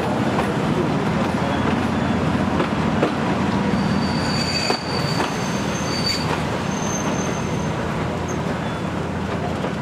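Train running at speed, heard from on board: a steady rumble of wheels on rail, with thin high wheel squeals for a few seconds around the middle.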